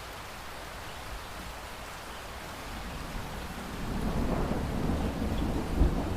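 Light rain falling steadily with drips, while distant thunder rumbles in low, building from about halfway through and loudest near the end.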